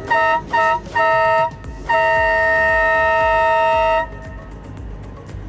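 Tour boat's horn (ship's whistle) sounding three short blasts, then one long blast of about two seconds.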